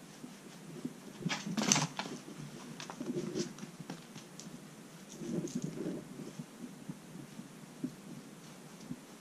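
A kitten scampering and pouncing on tatami mats after a cat teaser toy: irregular patter of paws and scuffing rustles, loudest in a short scuffle about a second and a half in.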